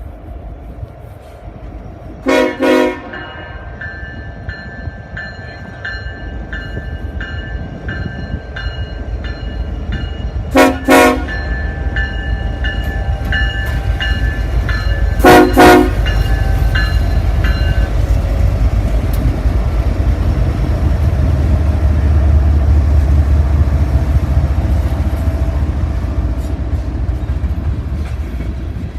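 Freight locomotive horn sounding one short blast, then two pairs of short blasts, while a bell dings steadily. The low rumble of the passing train builds and is loudest about three-quarters of the way through.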